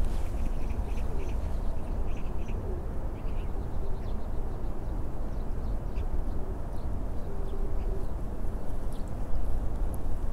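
A steady low rumble, with short, faint bird calls during the first few seconds.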